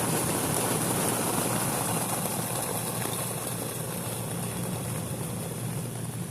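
Thunder rumbling in a long roll that slowly fades, over a steady low hum.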